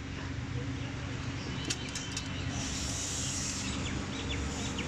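Steady low machine hum in the background, with a few light metallic clicks about a second and a half in as the diesel injection pump is handled, and a brief hiss around the middle.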